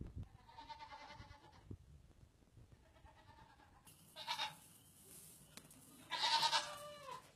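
Baby goats bleating: four separate bleats, the last one the longest and loudest.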